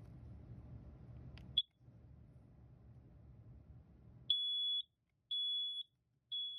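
Kidde combination smoke and carbon monoxide alarm sounding three high-pitched beeps, each about half a second long and one a second: the temporal-three pattern of a smoke alarm. A single short chirp comes a few seconds earlier, over a low steady hum.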